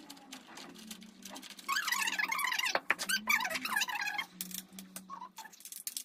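Metal screws in a cat scratching post's frame squeaking as they are turned out with a wrench: a dense run of high, wavy squeaks for a couple of seconds, with a few light clicks after. A steady low hum runs underneath.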